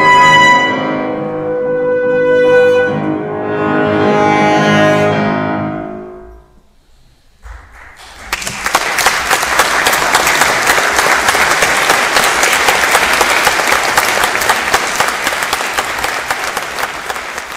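Saxophone and piano holding the last notes of a classical piece, which die away about six seconds in. After a brief pause, an audience applauds steadily.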